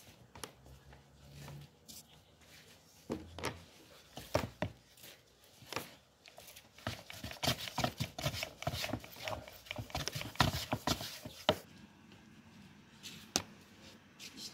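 Long thin wooden rolling pin knocking and rolling on a floured wooden board as a sheet of dough is rolled thin. A few separate knocks come about three seconds in, then a fast run of knocks and rubbing strokes from about seven to eleven seconds.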